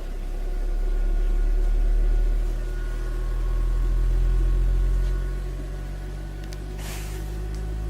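Sony APM flat-diaphragm woofers playing a loud, deep bass test tone during a frequency sweep, with buzzing overtones above it. The tone swells and dips in loudness, and there is a brief hiss about seven seconds in.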